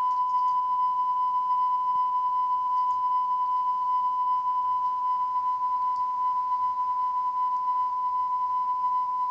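A continuous electronic beep: one steady, high-pitched tone held without a break over a faint hiss.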